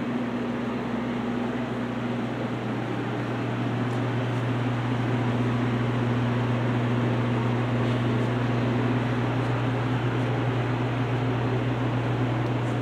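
Steady low electrical hum with an even fan-like hiss from refrigerated glass-door drink coolers running, their compressor and fans, growing a little louder about four seconds in.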